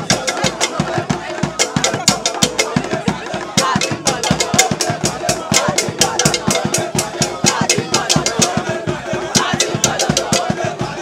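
Festival drum ensemble playing a fast, steady rhythm of many strikes a second: hourglass talking drums beaten with curved sticks and a large double-headed barrel drum. The voices of the crowd in the procession run underneath.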